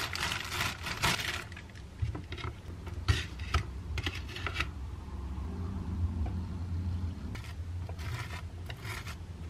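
Light clicks, taps and scrapes of sandwich-making by hand: bread slices set on a wooden plate and a plastic squeeze bottle handled over them. They come in three short clusters, at the start, in the middle and near the end, over a low steady hum.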